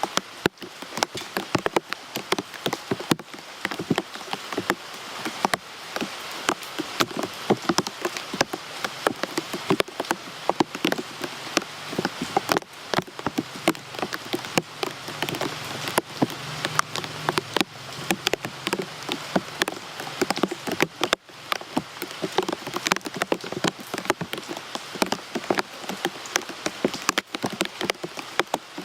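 Steady rain falling, with many sharp, irregular drops striking close by over an even hiss of rainfall.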